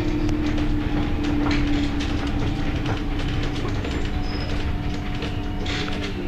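City bus running, heard from inside the passenger cabin: a steady low rumble of engine and road noise with a constant hum and scattered small rattles and clicks.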